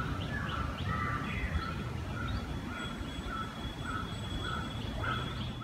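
Birds calling from surrounding forest: a short note repeated about twice a second, with small rising chirps and a held high whistle. All of it sits over a steady low outdoor rumble.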